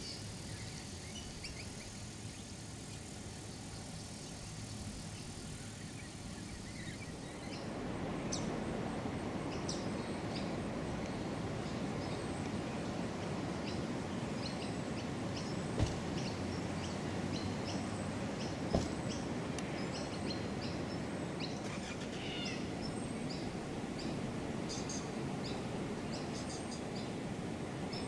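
Outdoor ambience: birds chirping in many short calls over a steady background noise that turns louder about a quarter of the way through. Two brief clicks stand out in the second half.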